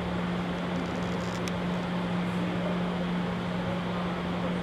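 E001-series TRAIN SUITE Shiki-shima standing at the platform, its onboard equipment humming steadily with one low, constant tone over an even whir like fans or air-conditioning.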